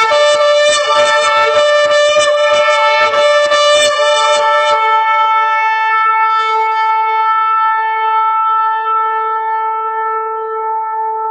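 A horn blown in one long held blast, sounded to frighten off evil spirits. The note is rough and buzzing for the first few seconds, then settles into a clean, steady tone.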